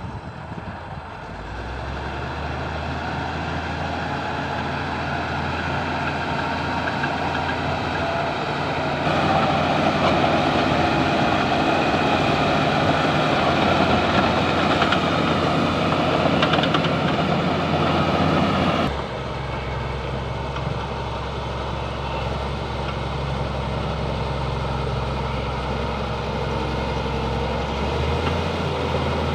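Bulldozer's diesel engine running with a steady drone. It grows louder for about ten seconds in the middle, then drops back suddenly.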